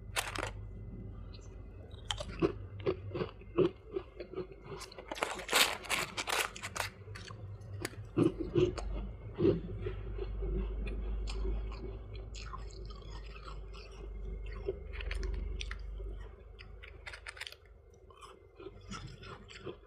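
Close-up crunching and chewing of soft white frost ice in the mouth, a steady run of crisp crackles, densest about a third of the way in.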